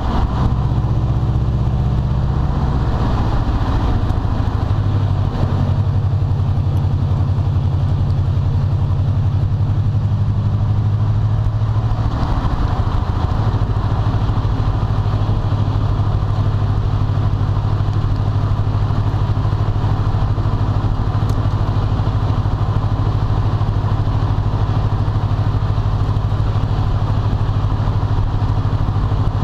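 2012 Subaru WRX's turbocharged flat-four engine running through an aftermarket turboback exhaust. Its pitch shifts in the first few seconds and again about twelve seconds in, then holds steady.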